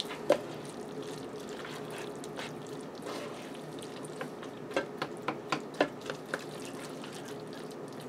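A spoon stirring thick macaroni and cheese in a large pot, with a run of short sharp clicks of the spoon against the pan about five to six seconds in, over a faint steady hum.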